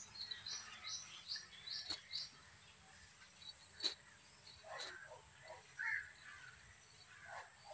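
Faint bird calls: quick high chirps in the first two seconds, then several short falling calls around the middle. A couple of sharp clicks come in between.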